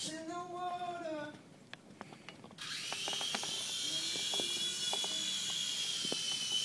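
Small electric RC helicopter's motor and rotor starting abruptly about two and a half seconds in, then running with a steady high whine and rushing hiss. Before that, a short tone that rises and falls.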